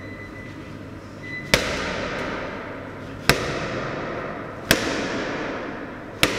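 Heavy medicine ball slammed onto a rubber gym floor four times, about every one and a half seconds, each a sharp smack followed by a long echo.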